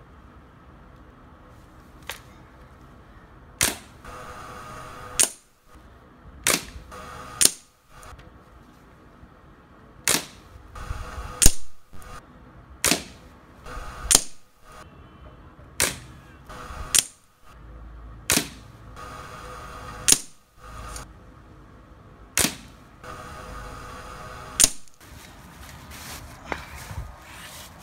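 Crosman Springmaster 795 .177 break-barrel spring-piston air rifle being fired over and over, a string of about fifteen sharp cracks and clicks one to two seconds apart.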